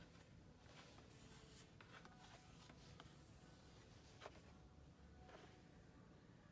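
Near silence with faint scratching strokes and a few light clicks.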